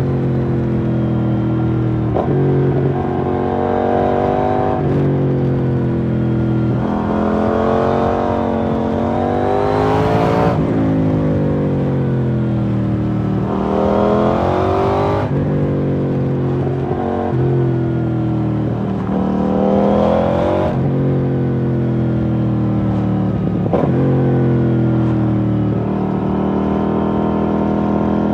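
KTM 790 Duke's parallel-twin engine through an IXRace MK2 exhaust, ridden hard. The revs climb and drop sharply several times as it changes gear, with steadier stretches between.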